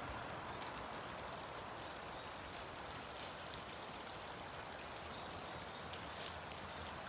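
Steady rain falling in the forest, an even hiss with a few faint ticks and a short high-pitched sound about four seconds in.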